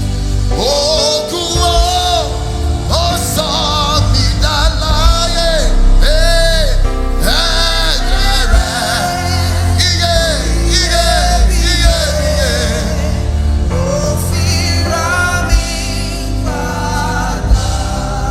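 Live gospel worship music: a singer holds long, wavering notes over instrumental accompaniment with a heavy bass.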